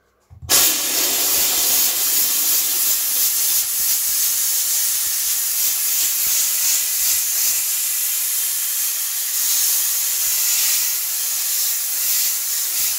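Kärcher steam cleaner blowing steam through its concentrated spot nozzle: a loud, steady hiss that starts suddenly about half a second in.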